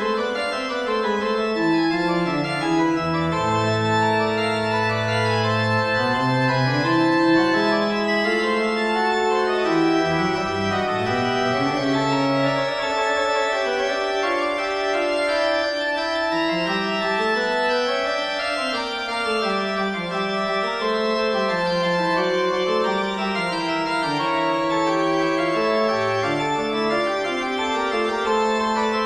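Background music: an organ playing several melodic lines at once, with the bass line stepping up and down, at a steady level throughout.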